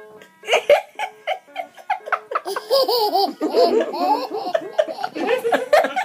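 Baby laughing hard in quick runs of giggles that build into a belly laugh, with high squeals about three seconds in.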